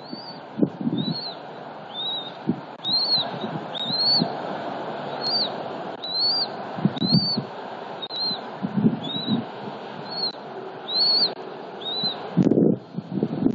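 Newly hatched bald eaglet peeping: a steady series of short, high chirps, about one every two-thirds of a second. Beneath them is a hum of road traffic with low rumbling bumps, and a brief loud rustling burst near the end.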